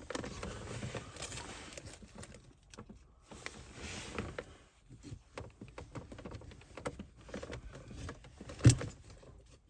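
Pliers working the plastic retaining clip on a VW Passat B6 gear shift knob and gaiter: rustling handling noise and small plastic clicks, with one sharp click near the end.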